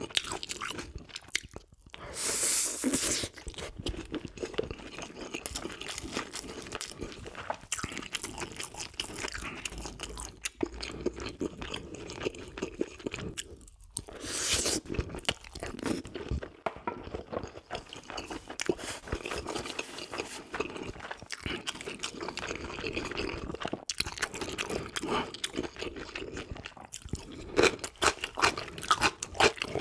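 Close-up chewing and crunching of food in the mouth, with two brief louder bursts, one about two seconds in and another about fourteen seconds in.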